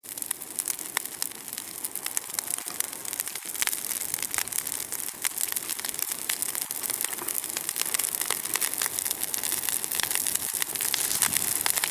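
Large bonfire crackling: a steady hiss thick with sharp snaps and pops.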